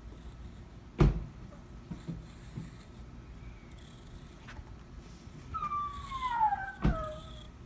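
A cat meows once near the end, a long call falling steadily in pitch. A sharp thump about a second in is the loudest sound, with a second thump just before the meow ends.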